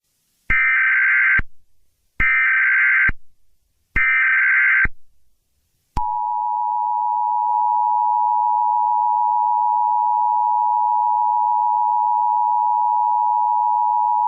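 Emergency Alert System header: three short bursts of SAME data tones, each just under a second long and about a second and a half apart. Then comes the two-tone EAS attention signal, a steady tone held for about eight seconds, which announces an emergency alert.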